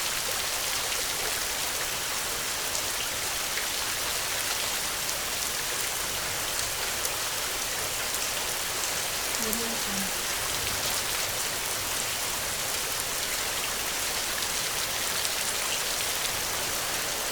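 Heavy rain falling steadily, an even hiss of drops with no thunder.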